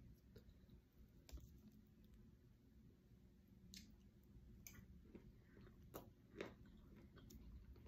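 Near silence with a few faint clicks and soft chewing sounds from a person eating.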